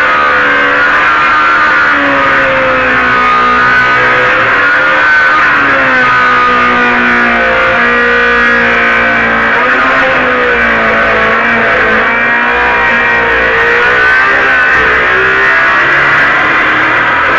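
Corded electric circular saw running through deck boards. The motor's whine sags and recovers over several seconds as the blade takes and eases the load.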